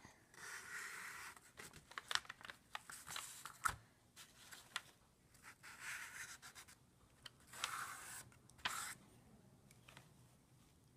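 Quiet paintbrush strokes dabbing and scrubbing gold metallic tempera paint onto a pin: a run of short scratchy rubs and light clicks that die away about nine seconds in.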